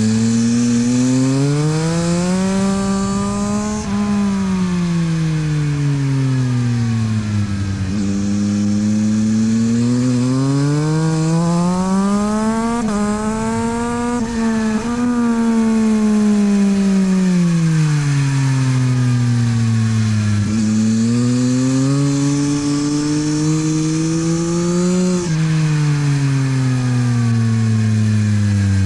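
Yamaha MT-09 SP's three-cylinder engine through a LeoVince aftermarket exhaust, heard on board at speed on a race track. The revs climb and fall again and again with acceleration and slowing between corners, with a sudden drop in pitch about 25 seconds in.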